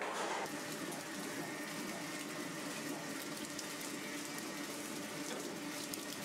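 Steady rushing noise with a faint hum under it, cut off abruptly at the end.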